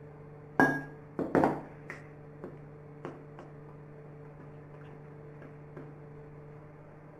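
Kitchenware clattering: one loud ringing clank about half a second in, a couple more knocks just after, then a few light taps, over a steady low hum.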